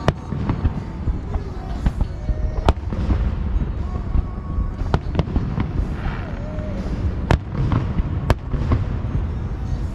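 Fireworks going off: a dense low rumble of shell bursts, with many sharp bangs and crackles throughout.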